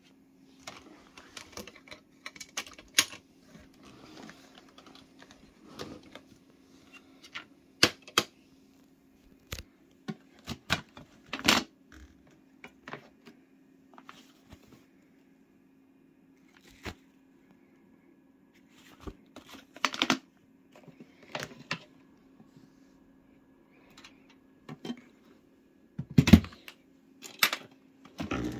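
Irregular plastic clicks, knocks and rattles as a Numatic NVQ250 tub vacuum cleaner is handled and its motor head is taken off to show the filter, with a faint steady hum underneath. The vacuum is not switched on.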